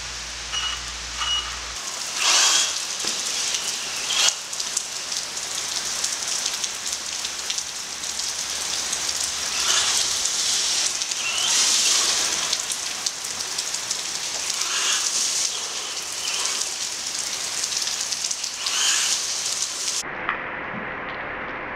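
Heavy rain falling on wet asphalt: a steady hiss that swells louder every few seconds and turns duller near the end.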